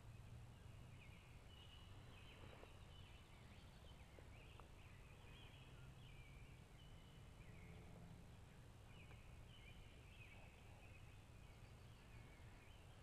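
Near-silent woodland: faint short bird calls repeat high up now and then, over a low steady background hum.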